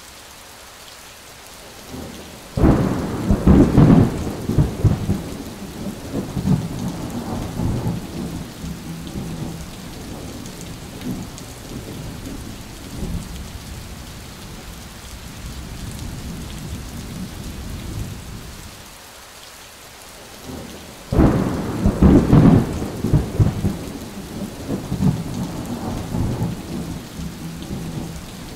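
Thunderstorm: steady rain with two loud claps of thunder, one about two and a half seconds in and another about twenty-one seconds in, each rumbling away over several seconds.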